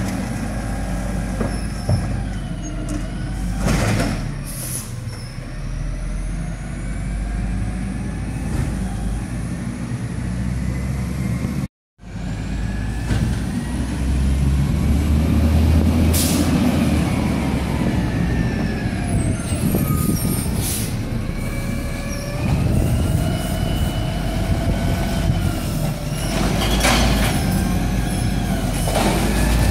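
Peterbilt 320 refuse truck with an Amrep Octo automated side-loader arm, its natural-gas engine running and revving up and down to drive the hydraulic arm as recycling carts are lifted and dumped, so the pitch rises and falls repeatedly. A few short sharp noises stand out, and the sound drops out briefly near the middle.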